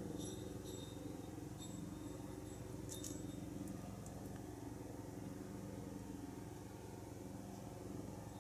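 Mother cat purring steadily while her kittens nurse, a low, evenly pulsing rumble. A few faint high squeaks come near the start and about three seconds in.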